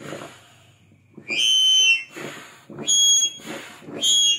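Bellows air pump worked by hand, inflating an inflatable boat: three strokes a little over a second apart, each push forcing air through the hose with a high whistle that dips slightly at its end, then a softer rush of air as the pump refills.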